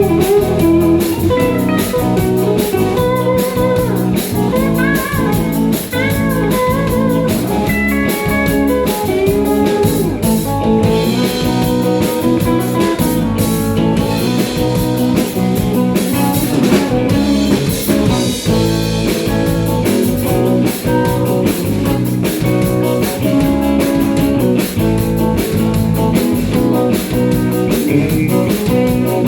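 Live country band playing, with guitar over a drum kit.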